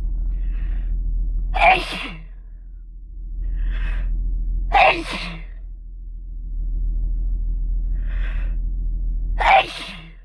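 A person sneezing three times, about three seconds apart, each sneeze preceded by a short gasping intake of breath. A steady low rumble runs underneath.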